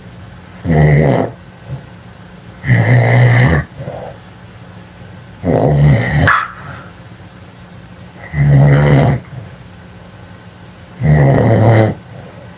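Loud snoring: five rough, rasping snores, one on each breath, about every two and a half to three seconds, with quieter breathing in between.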